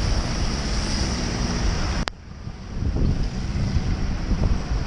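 Wind rushing over the microphone of a cyclist's camera while riding on a rain-wet road, mixed with wet-road hiss and traffic. A sharp click about two seconds in; the noise then dips for about a second before building again.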